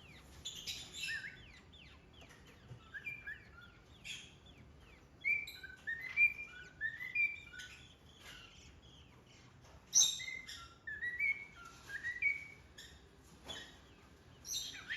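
Small pet parrot chirping and whistling: runs of short, rising whistled notes with a few sharp clicks between them.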